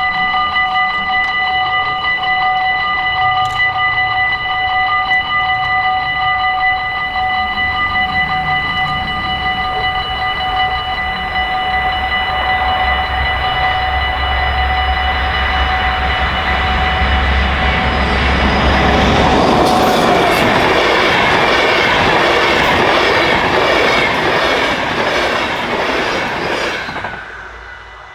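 Dutch level-crossing warning bells ringing with steady high tones as a train approaches and passes over the crossing. The rumble and rail clatter of the passing train build to their loudest in the second half, covering the bells, then stop suddenly near the end.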